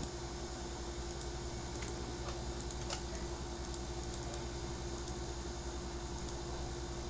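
Steady low electrical hum with a few faint, scattered computer clicks.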